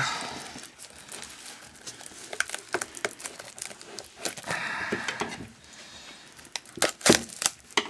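Trading-card box packaging being handled: crinkling and rustling with scattered sharp clicks and taps, a longer rustle about halfway through and a cluster of louder clicks near the end.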